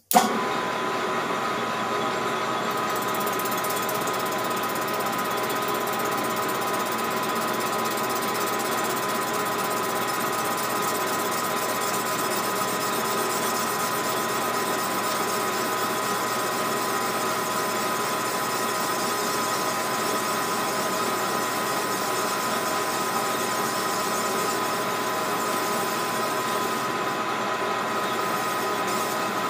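Small metal lathe switched on and running at steady speed, its motor and gears giving a steady whine as the chuck spins a chainsaw cylinder.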